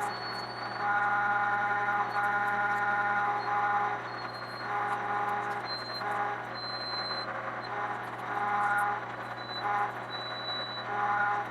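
Metal lathe running slowly in back gear while a parting tool cuts through the workpiece. A steady gear whine, with a pitched tone that swells and fades every second or two as the tool is fed in.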